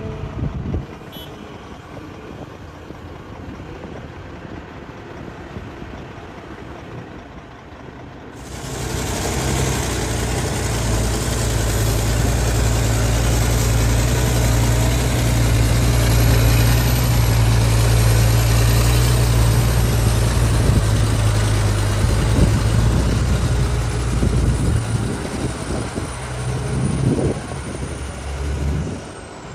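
Hitachi excavator's diesel engine: a low, quieter rumble, then about eight seconds in it revs up sharply to a loud, steady working speed. The steady run holds for most of the rest, then wavers up and down near the end.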